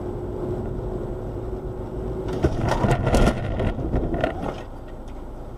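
Car in motion as picked up by a dashcam: steady engine and road noise with a faint hum. Then, about two and a half seconds in, a cluster of sharp knocks and clatter as the car collides with another car, with a few more knocks about a second later.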